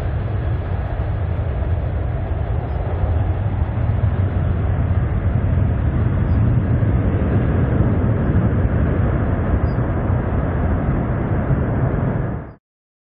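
Boeing 767-300ER twin jet engines at takeoff thrust as the airliner climbs out: a loud, steady deep rumble that cuts off suddenly near the end.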